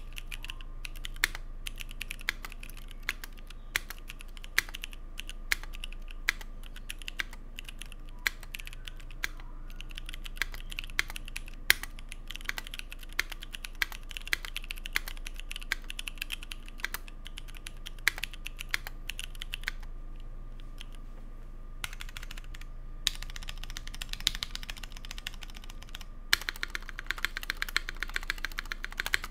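Typing on a Keycult 1/60 mechanical keyboard with C3 Equalz Dragonfruit tactile switches in an aluminum plate under GMK keycaps: a steady run of keystroke clacks, thinning briefly about twenty seconds in, then a fast flurry of keystrokes near the end.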